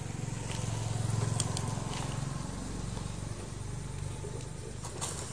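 A low, steady engine-like hum, loudest about a second in, with a few light clicks from the plastic toy excavator and soil being handled.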